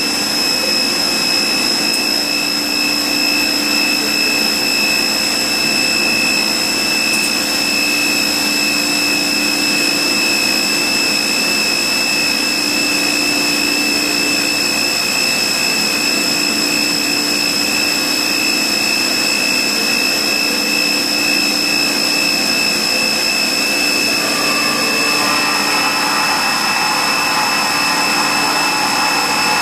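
Rüsch RDU beam drilling and sawing line running: a steady machine whine made of several constant tones over a hiss. About 24 seconds in, a further set of whining tones joins.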